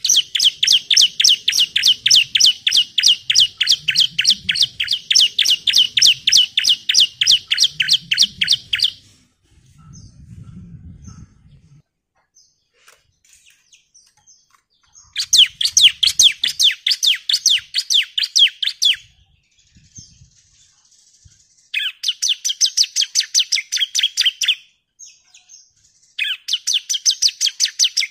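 Bar-winged prinia (ciblek) giving its rapid 'nembak' call: runs of fast, sharp repeated chirps, about four or five a second. One bout lasts about nine seconds at the start, then three shorter bouts of two to four seconds follow after a pause.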